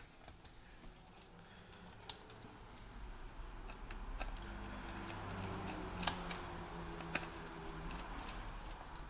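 Small screwdriver driving screws back into a laptop's plastic case: scattered light clicks and scrapes, two sharper clicks about six and seven seconds in, with a low hum in the middle.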